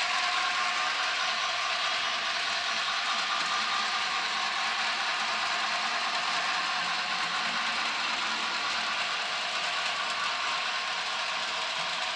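HO scale model freight train behind a Bachmann Spectrum Boston & Maine 2-6-0, running on the layout's track: a steady mechanical clatter of wheels on rail and the locomotive's motor and gears. It eases off slightly near the end as the train moves away.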